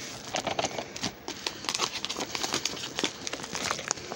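Rustling and crinkling of a yellow padded paper mailer being handled, with many quick irregular crackles and taps.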